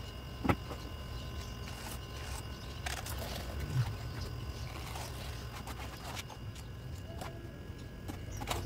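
Scattered short scrapes and taps of hand tools, a trowel and a plastic scraper, working wet concrete, over a steady low hum.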